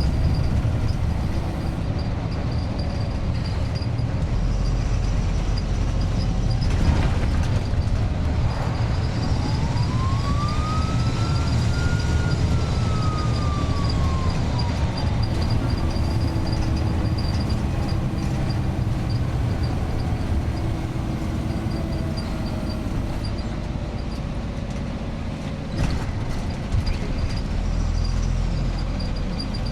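Iveco 170S28 bus diesel engine running under way, with a steady low rumble. About a third of the way in, the turbocharger whine rises to a shrill peak and falls away again over several seconds.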